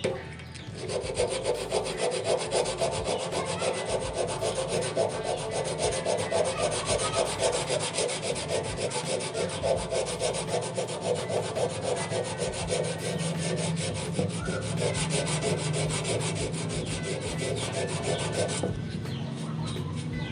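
Sandpaper rubbed by hand in quick, steady back-and-forth strokes over the filled patch on a metal motorcycle fuel tank, sanding the repair level.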